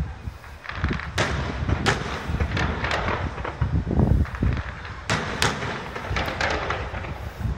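Fireworks going off: a rapid, irregular string of sharp bangs and crackles as shells and effects burst, over a low booming rumble.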